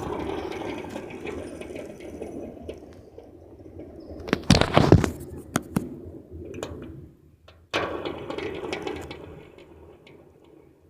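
Metal fidget spinner whirring as it spins down, then a loud burst of knocks and handling clatter about halfway through. It is set spinning again a little later, with a whir that fades away.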